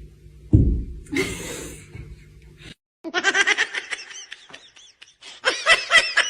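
A thump and a short rustle, then, after a break, high-pitched laughter in quick repeated bursts, about five a second.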